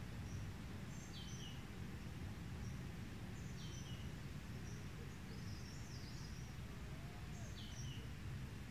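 Birds calling over a steady low outdoor rumble: a short high chirp repeats every second or two, and a falling two-note whistle comes three times.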